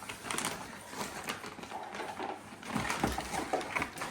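Rustling, crinkling and knocking of items and packaging being handled and rummaged through in a cardboard box, in irregular short clicks and scrapes.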